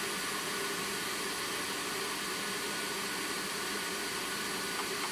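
Steady airy hiss of a small blower fan running, with a faint tick or two near the end.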